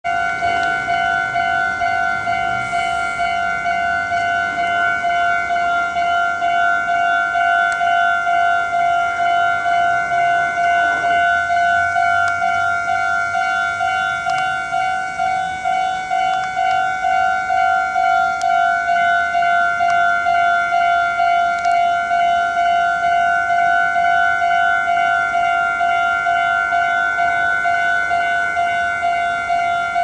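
Japanese railway level crossing's electronic warning bell ringing, a rapid, even ding repeated about two to three times a second, signalling that a train is approaching and the crossing is closed.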